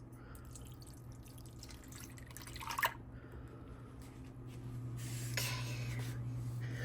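Milk being poured into a measuring cup: a faint trickle at first, a small clink of the container about a third of the way in, then a fuller, steadier pour over the last couple of seconds.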